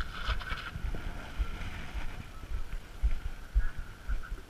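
Mountain bike rolling down a rough dirt trail, with low irregular thumps and knocks as it rides over bumps and roots, under a faint steady high hum.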